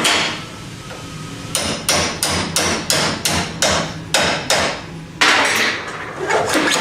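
Hammer blows driving a 3/16 roll pin into an X-Line running tool: one strike, then a run of about ten quick taps about three a second, with more blows near the end.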